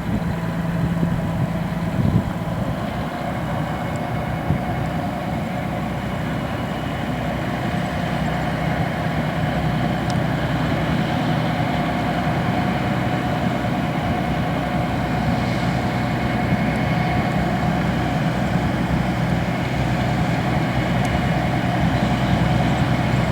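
Diesel engines of river tugboats running steadily with a low, even hum, growing slightly louder toward the end.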